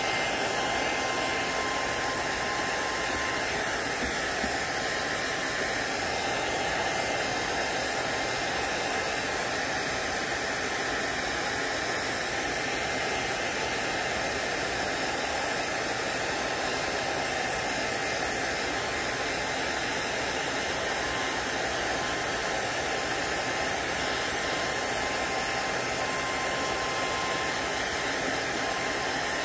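Heat gun blowing steadily: an even rush of air with a faint, steady high whine.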